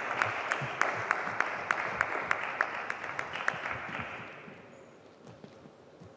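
Scattered applause from a small audience, many separate claps, dying away after about four seconds.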